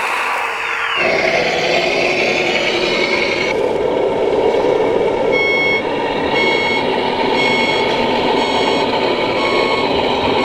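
Reversing beeper of a radio-controlled scale construction vehicle, starting about five seconds in and beeping about once a second. Under it runs a steady engine-like noise from the model's sound module and motors.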